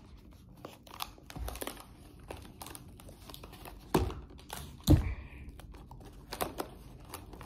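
Paper crinkling and rustling as a paper nose cone is pressed and taped onto a cardboard tube, with scattered small clicks and two louder thumps about four and five seconds in.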